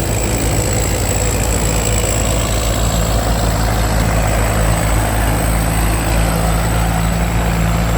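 Rice combine harvester's 260-horsepower Hino J08C diesel engine running steadily, with a thin, steady high whine above the engine hum.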